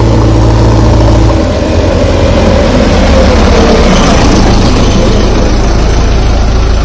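JCB backhoe loader's diesel engine running loudly at close range as the machine moves past. A steady low hum changes to a rougher engine sound about a second and a half in, with a slight rise in pitch a couple of seconds later.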